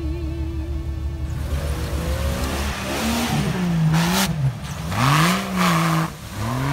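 Off-road 4x4's engine revving hard several times, each rev climbing in pitch, holding and falling away, with bursts of hiss from the spinning tyres, as the truck drives out of deep mud. A held musical note fades out in the first second or so.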